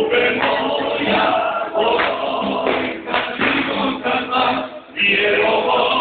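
Loud music with many voices singing together, dipping briefly just before five seconds in.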